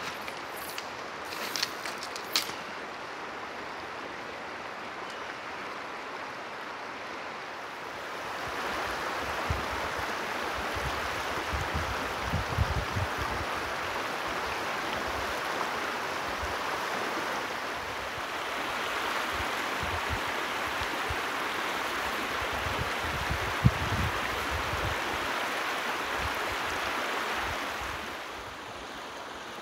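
Steady rush of a shallow river running over stones through a riffle. It grows louder about a quarter of the way in and drops back near the end, with a few clicks near the start and scattered low thuds.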